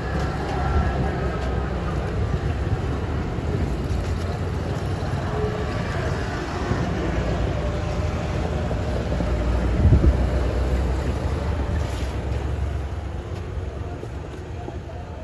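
Car wiper motor driving a homemade electric screw jack under the load of a car, running steadily with a low drone and a faint whine. A brief knock sounds about ten seconds in.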